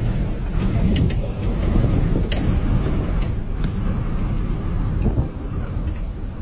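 Downburst wind battering a tower crane's cab and the microphone: a heavy, steady low rumble with sharp knocks now and then, two close together about a second in and another at about two seconds.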